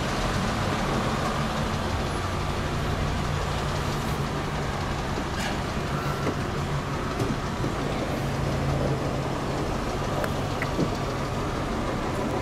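A steady low engine drone over a constant background rush, with a few faint clicks.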